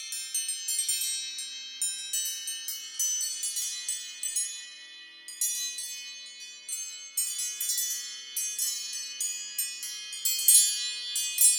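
iPhone ringtone made of a rapid cascade of high, bell-like chime notes, each ringing on briefly, like wind chimes, over a faint low sustained tone.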